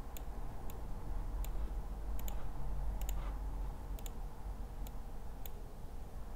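Sparse, sharp clicks of a computer keyboard and mouse, roughly one or two a second and some in quick pairs, over a steady low hum.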